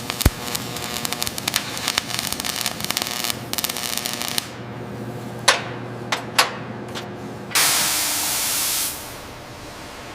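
Workshop sounds: about four seconds of rapid crackling and metal clicking, a few sharp knocks, then a hiss of about a second and a half, like a blast of compressed air or spray, that cuts off abruptly.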